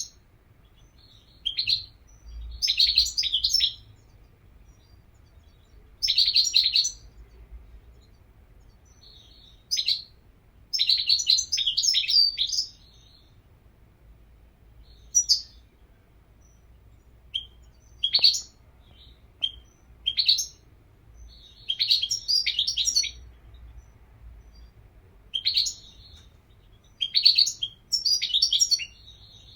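European goldfinch singing: short bursts of rapid twittering and chirps, a new phrase every one to four seconds.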